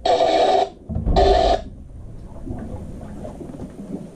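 VHF marine radio speaker: an incoming transmission breaking up into two short bursts of garbled noise within the first second and a half, then cutting out to a low background with faint clicks. The signal is too weak to make out.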